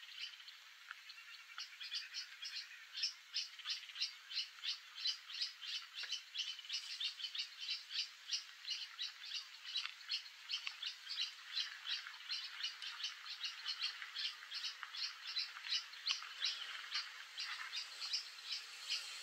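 A calling animal repeating a short high chirp, about three or four times a second, in a steady unbroken series that is fainter for the first couple of seconds.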